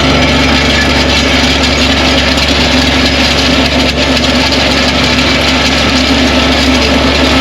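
A small engine running steadily at high speed under load, with a loud even hiss of cutting noise over it.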